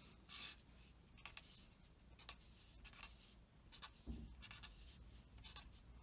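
Faint scratching of a pen drawing several separate straight strokes across paper on a clipboard. There is a soft low bump about four seconds in.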